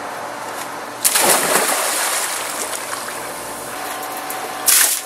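A person jumping into an above-ground backyard pool: a big splash about a second in, then water sloshing, with another short, sharp burst of splashing near the end. A steady hum runs underneath.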